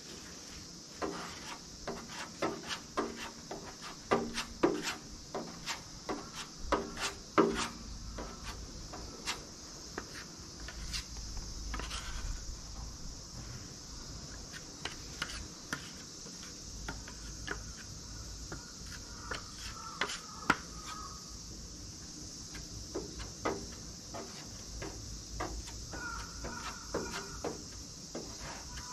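A putty knife scraping and clicking as polyester body filler is scooped off a plastic mixing board and spread over dents on a steel engine lid. A quick run of scrapes and taps fills the first eight seconds, then the strokes come more sparsely. A steady high hiss runs behind.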